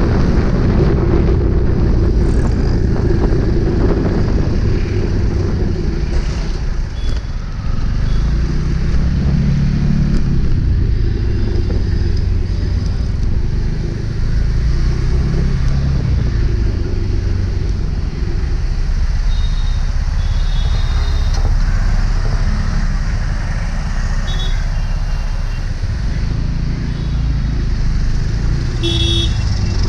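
Motorcycle engine running under way, its pitch rising and falling as the rider speeds up and slows, with wind rush on the microphone and surrounding traffic. A few short high horn beeps sound, the clearest near the end.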